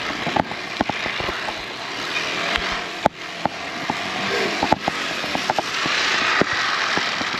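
Bicycle being ridden: a steady rushing hiss of tyres and air, with scattered irregular clicks and rattles.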